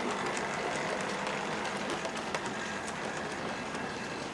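OO gauge model train running past on the track: a steady whir with many light clicks from the wheels over the rails, slowly fading as the train moves away.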